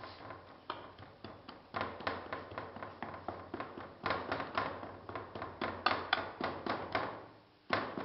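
Hand rammer tamping moulding sand of quartz sand, clay and molasses into a foundry flask: a quick run of dull thuds, about three or four a second, with a brief pause near the end.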